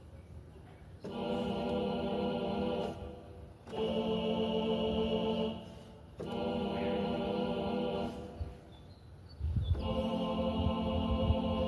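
Yamaha P-242 keyboard playing four long held chords on a choir-like sustained voice, each about two seconds long with short gaps between them. Low thumps sound under the last chord.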